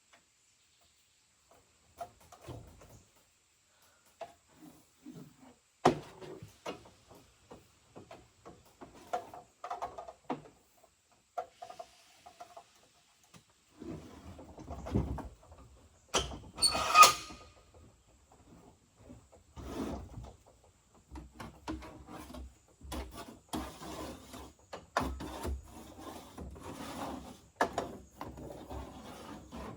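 Handling noises from a jigsaw that has stopped working as it is taken apart and checked: irregular clicks, knocks and scraping, with a short, louder ringing squeak about halfway through. No motor runs.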